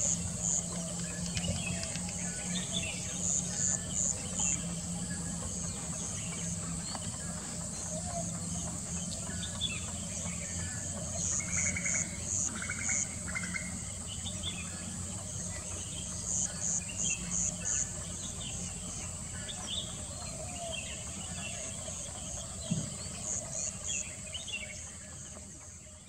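Natural ambience of insects and birds: a steady high insect trill with short groups of four or five quick chirps every few seconds, and scattered small-bird calls.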